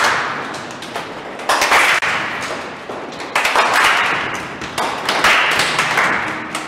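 A group of children doing body percussion with their hands: a swishing rub that swells and fades about every second and a half, with light taps and claps mixed in.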